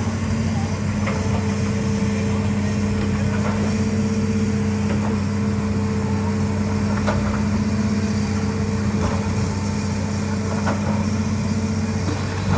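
Hitachi crawler excavator's diesel engine running steadily at a low, even hum, with a few short knocks scattered through it.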